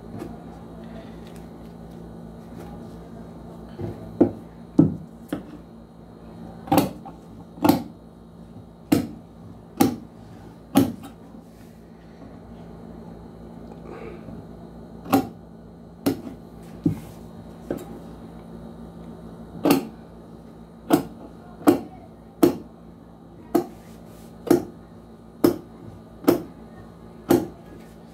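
Tailor's shears cutting through paper in a run of sharp snips, about one a second, starting about four seconds in and pausing briefly midway, over a low steady hum.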